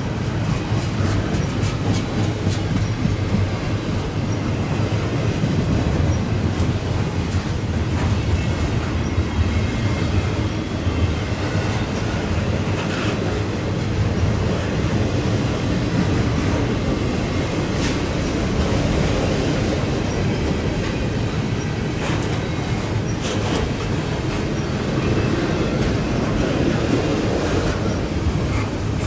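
Double-stack intermodal freight train's container well cars rolling past: a steady rumble of steel wheels on rail, with scattered clicks and knocks.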